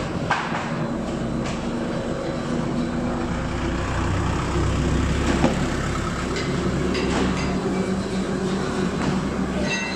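Veneer peeling line machinery running with a steady mechanical hum, heavier in the middle, and a few sharp knocks.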